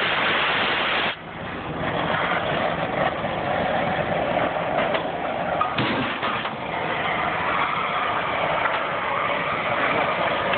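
Oxy-fuel cutting torch hissing steadily as it flame-cuts iron. A louder blast of the torch cuts off suddenly about a second in, and it swells again briefly near the middle.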